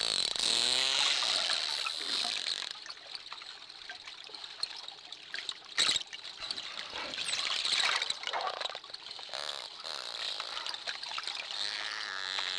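Dolphins calling underwater: wavering whistles at first, then a quieter stretch of scattered clicks with one sharp loud click about six seconds in, and whistles again near the end.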